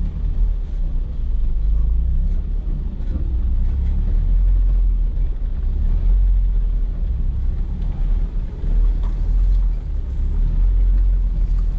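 Off-road 4x4 vehicle's engine running, a steady low rumble.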